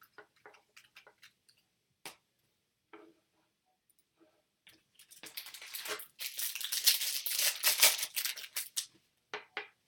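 A few soft scattered taps of cards being handled, then about five seconds in, a few seconds of loud crinkling and tearing as a trading-card pack wrapper is ripped open.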